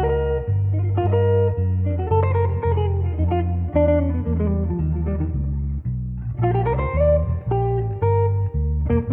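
Background music: guitar with a bass line, notes plucked about twice a second.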